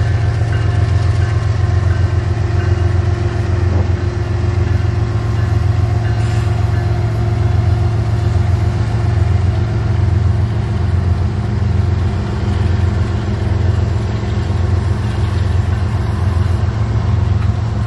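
Diesel freight locomotives passing at close range, their engines running with a loud, steady low drone.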